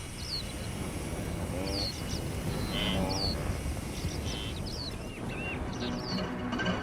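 A wildebeest herd on the move: a steady low rumble under several short, low, lowing grunts from the animals. Short high chirps come through here and there.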